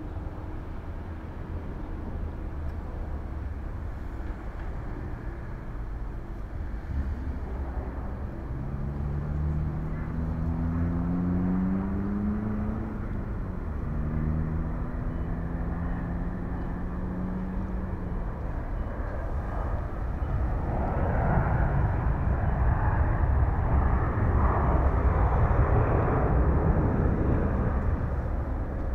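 Boeing 737-800 jet airliner landing and rolling out, heard from a distance: its CFM56 turbofans give a steady low rumble, with a louder rushing roar building in the last third. Midway a humming tone rises, then drops in pitch.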